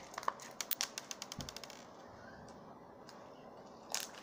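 Slime being squeezed and pressed between the hands, giving a quick run of small clicks and pops for about two seconds, then a few more clicks near the end.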